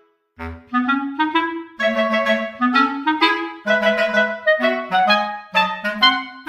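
Background music: a lively melody of short, quick pitched notes, which breaks off briefly near the start and then resumes.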